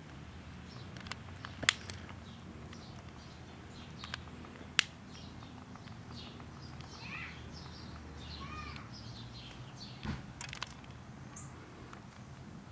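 An oil-and-alcohol fire burning steadily on a plastic birthday candle, with two sharp pops and a few fainter crackles. Birds chirp in the background, several short calls a few seconds in.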